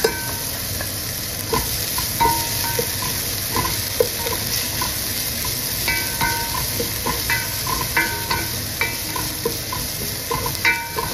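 Chopped garlic and ginger sizzling in hot oil in a stainless steel pot, stirred with a wooden spoon. The spoon's scrapes and knocks against the pot give many short metallic pings over the steady sizzle.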